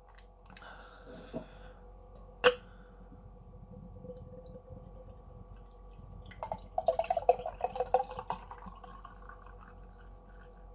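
A freshly opened beer can hissing briefly, then one sharp click about two and a half seconds in. From about six seconds in, beer is poured from the can into a glass, splashing and fizzing for about two seconds, with the pitch rising as the glass fills.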